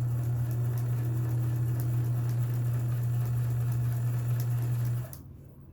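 Kenmore 158.1781 sewing machine running at a steady speed, sewing a close zigzag similar to a satin stitch: an even motor hum with fast needle ticking that stops about five seconds in.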